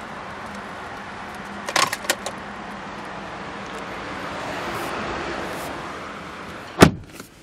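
Steady background noise with a faint hum and a few light clicks, then a single sharp knock near the end, after which the background goes noticeably quieter.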